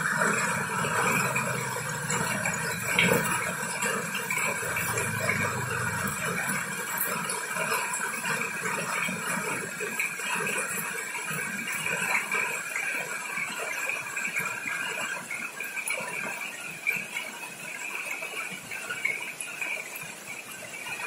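Goats feeding at a trough, rustling and tearing fresh-cut grass with many small clicks and knocks. A low rumble underneath fades out about six seconds in.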